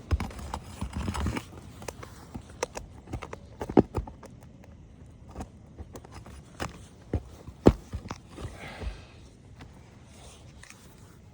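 Irregular knocks and taps on an asphalt shingle roof during shingle repair work, two of them much louder than the rest, with a brief scraping sound shortly before the end.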